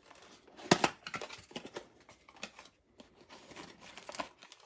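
Small cardboard pump box being opened by hand: rustling and scraping of the cardboard flap and packaging, with a sharp click about three-quarters of a second in and lighter clicks after it.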